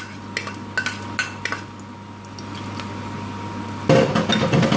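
Chopped garlic sizzling gently in hot ghee in a non-stick frying pan, with a few light clicks in the first second and a half. About four seconds in, a metal ladle starts stirring the garlic and the sizzle and scraping get louder.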